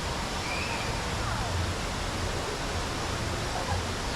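Ocean surf washing onto a beach: a steady hiss of breaking water with an uneven low rumble underneath, and a faint short chirp about half a second in.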